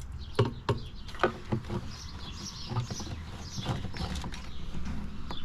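Birds chirping over a low steady rumble, with irregular sharp knocks and rustles.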